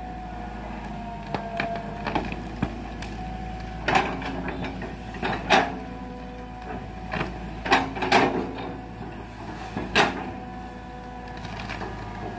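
Tracked excavator's diesel engine and hydraulics running steadily with a faint whine, while the machine pushes over rubber trees. Sharp knocks and cracks sound about four seconds in, then several more over the next six seconds.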